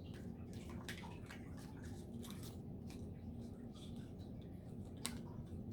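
Oracle cards being shuffled and drawn by hand: faint scattered clicks and rustles over a low room hum, with one sharper card snap about five seconds in.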